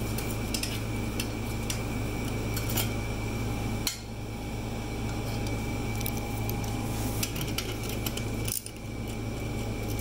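Light, irregular clinks and taps of hand tools and loose bolts against metal while bolts are loosened and removed, over a steady fan-like hum.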